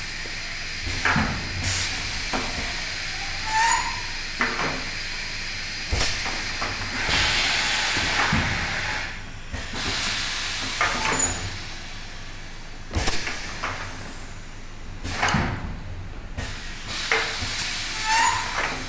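Pneumatic aerosol can filling machine working: compressed air hissing in stretches, with sharp clicks and clunks from its valves and cylinders every second or few.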